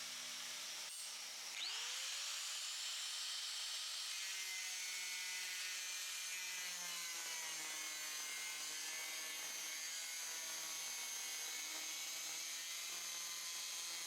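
Handheld power cutting tool spinning up about a second and a half in, then cutting the end off a steel bumper bar, its high whine wavering in pitch as it loads up in the cut.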